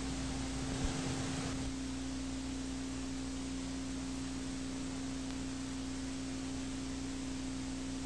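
A steady, low, pure electronic tone held without change, over a constant hiss. The hiss and low rumble under the tone drop slightly about a second and a half in.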